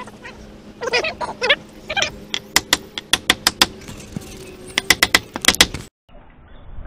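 Ratchet wrench clicking in quick runs of sharp metallic clicks, about six a second, as nuts are backed off the carriage bolts of a fence gate hinge. A few short squeaks come before the clicks, and the sound cuts off abruptly near the end.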